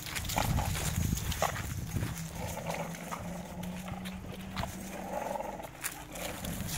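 American Bully dogs growling low as they bite and tug on a springpole rope, with scuffling paws and the rope jerking.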